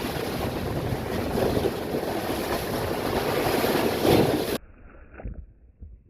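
Sea surf: a steady rush of waves washing in, swelling briefly about four seconds in, then cutting off abruptly, leaving only faint low rumbling and a few soft thumps.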